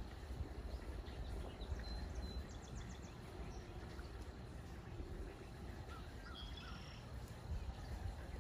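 Outdoor ambience: a steady low rumble with faint bird chirps and calls scattered through, including a quick run of chirps about two and a half seconds in.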